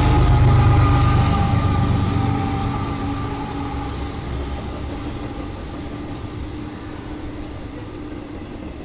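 A Union Pacific freight train's lead diesel-electric locomotives pass close by. Their engine rumble is loudest at the start and fades steadily as the units move away, leaving the rolling noise of the freight cars.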